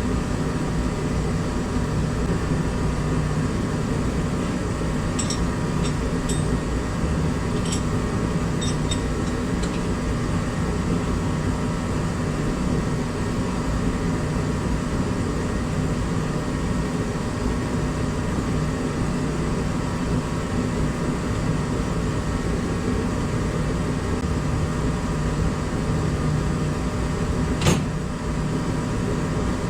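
A steady mechanical hum with a low rumble, like a shop fan or heater running. Over it come a few light clicks and taps of parts being handled, and one sharper click near the end.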